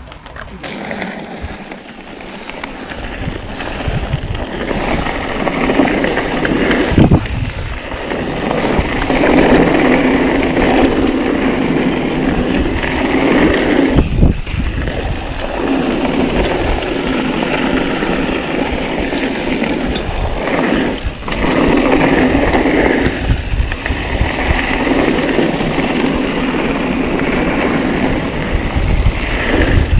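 Mountain bike running fast down a loose gravel downhill trail: the tyres crunch over stones and the bike rattles over bumps, with wind noise. It builds up over the first few seconds, and there are a couple of sharp knocks from hits on the trail.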